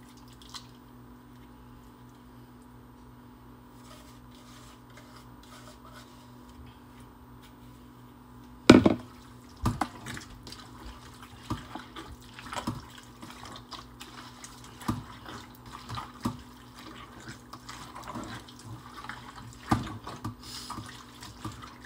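A hand mixing sliced beef in a wet marinade inside a stainless steel pot: irregular squelching and slapping, with the odd knock of the pot. It starts after one loud knock about nine seconds in; before that only a faint steady hum.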